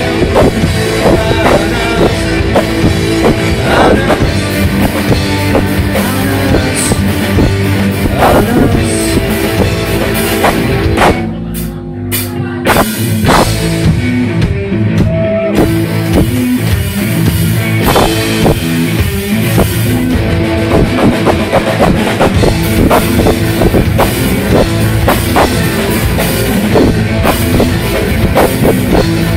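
Rock music with a driving drum kit. About eleven seconds in, the band drops back for a second or two, then comes in full again.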